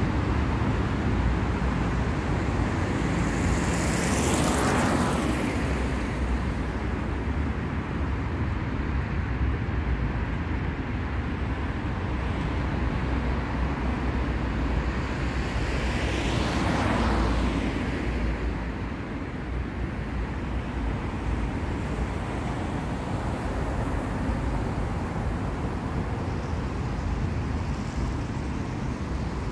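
City street traffic: a steady low rumble of engines and tyres, with two vehicles passing close by, one about four seconds in and another about sixteen seconds in, each swelling and fading.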